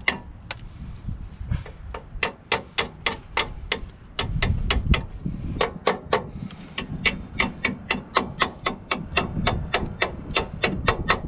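Small hammer tapping steadily on metal at a vehicle's rear brake, about three to four light strikes a second, with short pauses near the start and about four seconds in. A low rumble sits under the taps about four seconds in and again near nine seconds.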